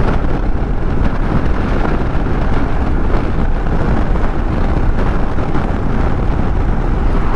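Motorcycle riding at highway speed: steady wind rush over the microphone with the engine running underneath.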